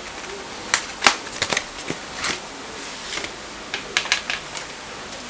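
Irregular sharp clicks and light crackles of plastic packaging being handled as a Corsair Vengeance Pro RAM kit is taken out of its box.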